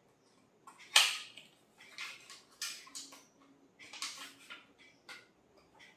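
A small cardboard box and a highlighter palette being handled and unpacked: a string of short rustles, scrapes and clicks, the loudest about a second in.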